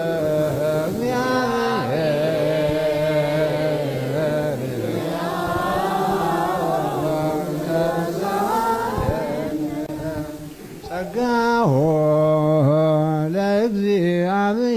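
Ethiopian Orthodox liturgical chant in Ge'ez: long held, slowly wavering sung notes. Several voices overlap around the middle, and there is a brief drop a little after two-thirds of the way before a single strong voice carries on.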